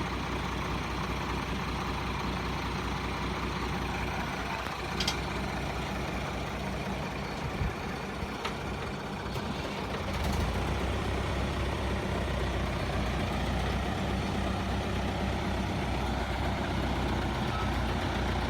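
Heavy truck's engine running under load, growing louder about ten seconds in.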